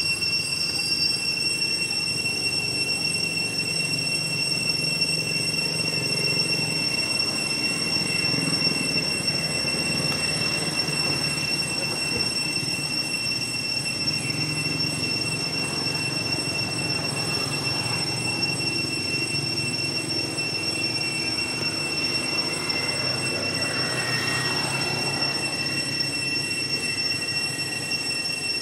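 A steady high-pitched whine holding one pitch without a break, over a low, even rumble of outdoor background noise.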